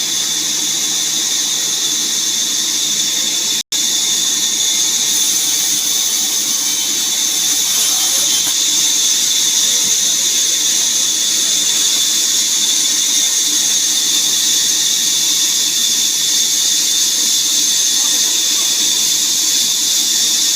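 Woodworking power saw running steadily with a high-pitched whine and hiss, dropping out for an instant about four seconds in.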